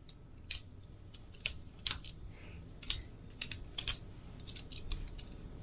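Balisong butterfly knife being flipped open and closed, its handles and blade clacking together in about nine sharp, irregular clicks.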